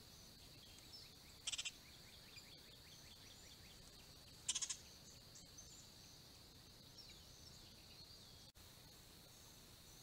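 A bird gives two short rattling chatters, each a quick run of pulses, about three seconds apart, with faint chirps between them, over a steady high-pitched background hiss.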